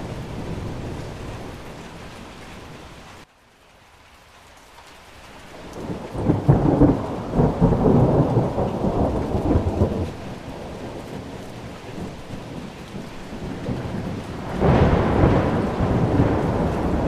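Heavy rain and storm runoff, a steady rushing noise with loud rumbling surges. The noise drops out abruptly about three seconds in, builds back up, and surges about six seconds in and again near the end.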